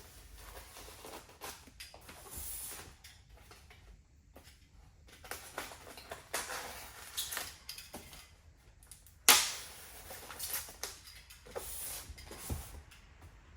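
Cardboard collector's box being unsealed and opened by hand: scattered rustling, scraping and small clicks of cardboard and packaging, with one sharp snap about nine seconds in.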